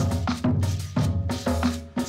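Intro music: a steady drum beat with bass and pitched notes, the strikes coming about three times a second.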